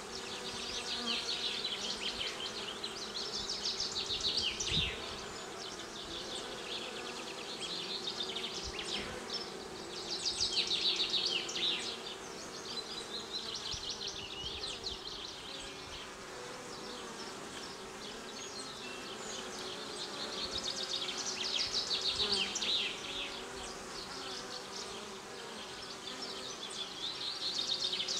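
Honeybees buzzing at a hive entrance: a steady hum from many bees flying in and out close by. A higher, rapid buzzing trill swells and fades about four times and is the loudest part.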